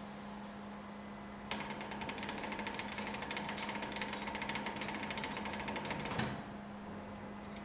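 A fast mechanical rattle starts about a second and a half in and stops abruptly about five seconds later with a louder knock, over a steady low hum.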